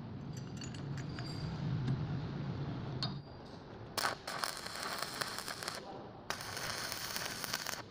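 Electric arc welding with a stick electrode, crackling and sputtering in two bursts of about two seconds each with a short break between, starting about four seconds in, as a steel tube is tack-welded to a lathe tool bit. Before the arc strikes, light metal clinks as the pieces are set in place over a low hum.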